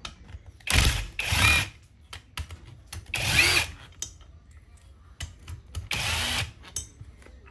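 Cordless drill-driver spinning in four short bursts as it backs the bolts out of a pressure washer's brass pump head, the first two back to back. Small metal clicks of handling come between the bursts.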